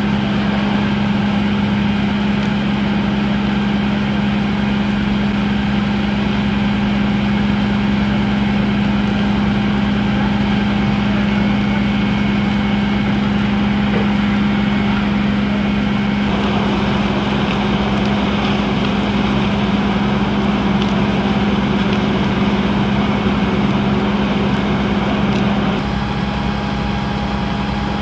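A heavy engine running at a steady speed, a loud unchanging hum. It drops slightly in level near the end.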